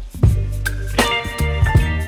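Music with deep bass, held tones and a steady beat of drum hits, dipping for a moment at the start.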